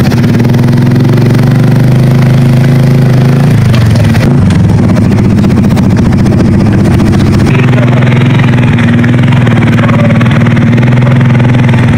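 Motorcycle engine running steadily at a moderate speed, its pitch lifting slightly around four seconds in.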